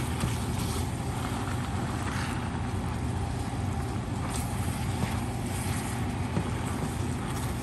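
Stir-fry of shrimp, beef and vegetables cooking in a hot wok while a spatula stirs and tosses it, with a few light scrapes against the pan over a steady low hum.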